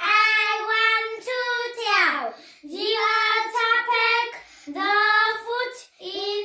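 A child singing in a high voice, short phrases of held notes, several ending in a falling slide.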